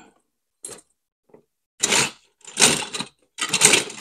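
Short, irregular bursts of handling noise, clicks and rattles of plastic and metal parts, from hands working the wire-feed compartment of a compact flux-core MIG welder. Three main bursts come in the second half.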